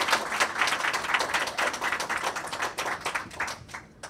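Audience applauding at the end of a talk. The clapping thins out and stops just before the end.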